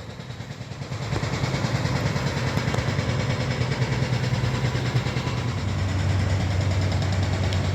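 An engine running steadily with a low hum, growing louder about a second in.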